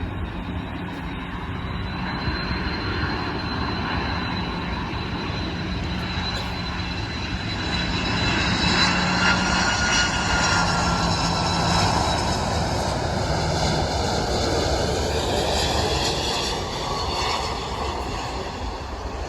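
Jet airliner's engines going by. The rush builds to its loudest about halfway through and then eases, while the whining tones slowly fall in pitch.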